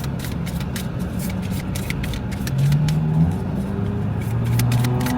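Steady car-interior noise with scattered light clicks. From about halfway, a low voice hums a few held notes.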